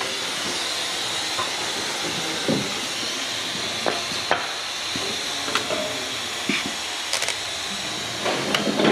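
Steady hiss of a vacuum drain canister sucking transmission oil out of a dozer's transmission, with a few short metallic clicks from a ratchet working a final-drive plug.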